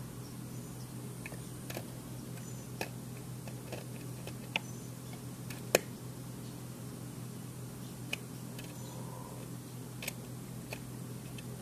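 About eight irregular sharp clicks and ticks, the loudest a little past halfway, from a plastic welding iron's tip working on a plastic kayak hatch lid, over a steady low hum.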